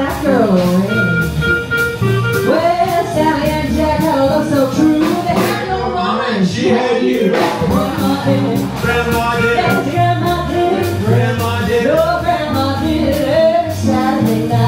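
Live swing jazz in 1940s big-band style: a woman sings the lead over a small combo of drums, upright bass, electric guitar and a woodwind, with a steady swinging beat.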